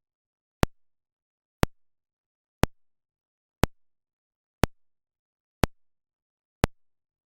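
Speaker polarity test signal: a sharp electronic click pulse repeating once a second, seven times, with dead silence between.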